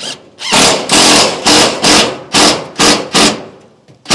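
Hammer blows on a sheet of metal roofing, about two a second, each strike ringing briefly in the sheet; a short pause near the end, then two more blows.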